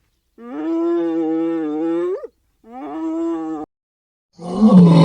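Hyena calling: two long, even-pitched calls, the first about two seconds and the second about one, then a louder, rougher call near the end.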